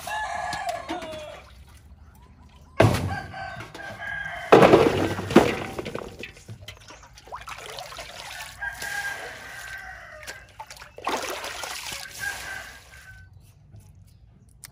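Water scooped with an aluminium bowl from a concrete water tank and poured out, in several splashing bursts, the loudest about five seconds in. A rooster crows in the background.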